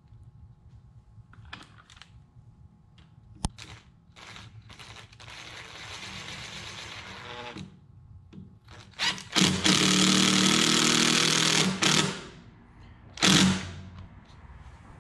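Cordless drill/driver driving screws into a wooden post to fasten a bracket. First comes a quieter run that winds down in pitch, then a loud run of about two and a half seconds, then a short burst near the end, with a few handling clicks before them.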